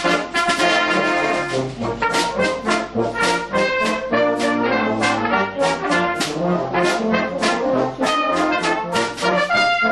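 Brass band of cornets and horns playing in full harmony, with many short, accented notes.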